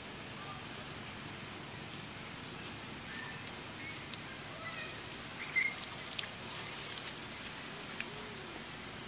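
Outdoor forest ambience: a steady background hiss with a few short high chirps and squeaks from small animals, the loudest about halfway through, and faint crackles of leaves and twigs.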